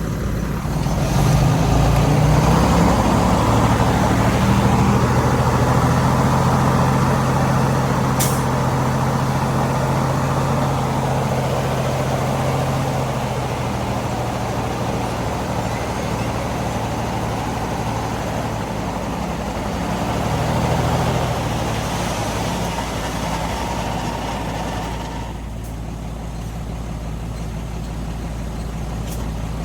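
Heavy diesel engine of earthmoving equipment running under load. It picks up about a second in, runs hard for about twelve seconds, then settles to a lower, steadier note, with one short sharp high sound about eight seconds in.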